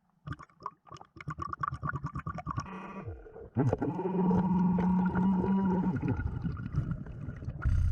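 Underwater sound of a diver breathing through a regulator: a burble of exhaled bubbles crackling for about three seconds, then a steady humming tone for a couple of seconds, with gliding pitched sounds near the end.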